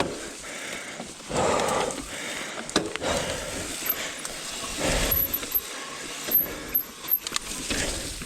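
Mountain bike drivetrain clicking and rattling while the bike is ridden uphill, mixed with tyre and trail noise.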